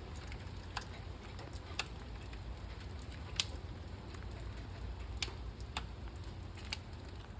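Light rain: scattered drops ticking sharply and irregularly, about one a second, over a steady low rumble.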